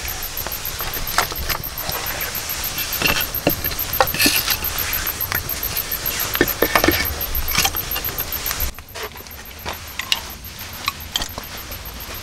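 Wood fire crackling and popping in a stone fireplace, a dense run of sharp snaps over a hiss. About nine seconds in it drops to quieter, scattered clicks and rustling.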